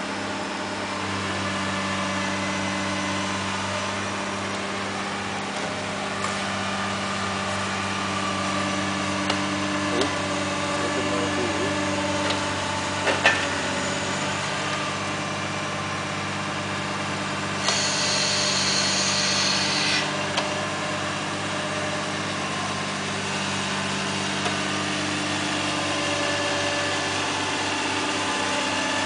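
Caterpillar high-reach demolition excavator's diesel engine running steadily, with a few sharp knocks as its attachment works at the building. A high hiss lasting about two seconds comes about two-thirds of the way through.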